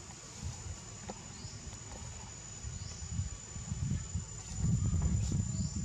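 Forest ambience: a steady high-pitched insect drone over a low rumbling noise that grows louder in the second half, with a few faint short rising chirps.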